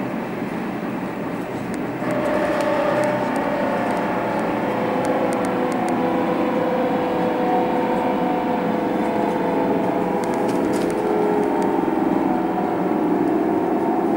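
Berlin S-Bahn class 480 electric train running and slowing down, heard from the driver's cab: a steady rumble of wheels on the track with a few humming motor tones. The sound gets louder about two seconds in, and short clicks come through now and then.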